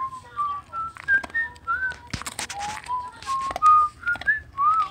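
A person whistling a wandering tune in short notes, with a dog crunching a Milk-Bone biscuit a couple of seconds in.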